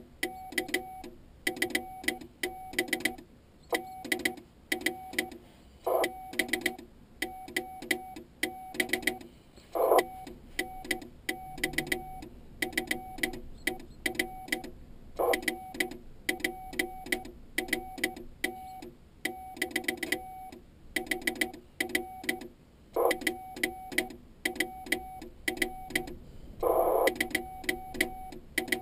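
Morse code (CW) from an Icom IC-701 transceiver: a steady mid-pitched tone keyed on and off in dots and dashes, with a sharp click at each keying.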